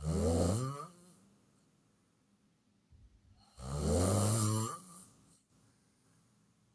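A sleeping person snoring loudly: two long, throaty snores about three and a half seconds apart, each lasting about a second.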